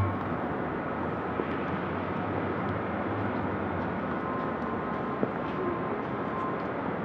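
Steady background noise with a faint hum, like outdoor ambience, after a piano chord fades out at the very start.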